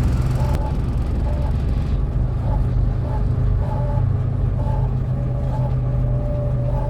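Dennis Dominator double-decker bus engine running with a steady low drone.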